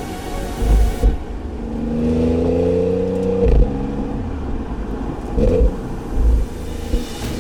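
Audi S4 B8's supercharged 3.0-litre V6 accelerating, its note rising in pitch for about a second and a half, then dropping off abruptly at an upshift about halfway through. A few short low thumps come through from the road.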